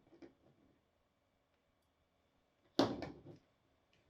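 Small handling noises at a workbench: a few faint clicks, then one sharp knock about three seconds in that dies away within half a second.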